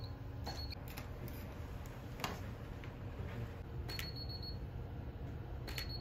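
Camera shutter clicking several times in a photo shoot, three of the clicks followed by a short high electronic beep, over a low steady room hum.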